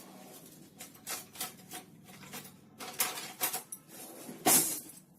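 A run of small taps, clicks and scrapes as a stick is pushed into a freshly microwaved mug cake and the mug is handled, testing whether the cake is cooked through. The loudest knock comes about four and a half seconds in.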